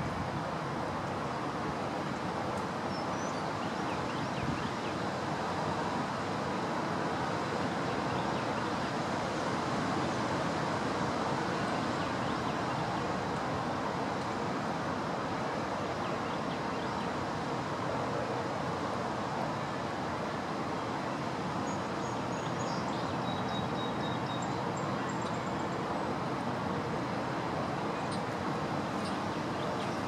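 Strong wind blowing across the microphone: a steady, even rushing noise.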